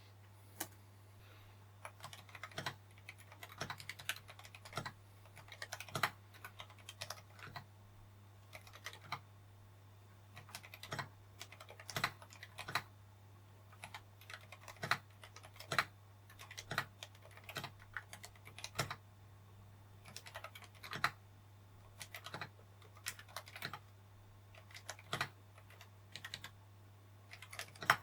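Typing on a Glorious GMMK Pro mechanical keyboard fitted with Akko Haze Pink silent linear switches. The keystrokes are quiet and muted and come in uneven short runs with brief pauses, over a faint steady low hum.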